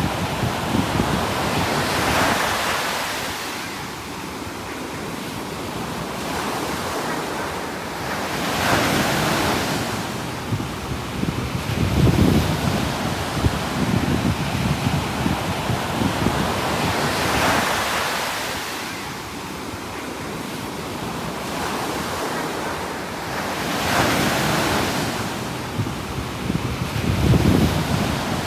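Ocean surf: waves breaking and washing in slow surges every several seconds, with a continuous rush between them and a low rumble of wind on the microphone.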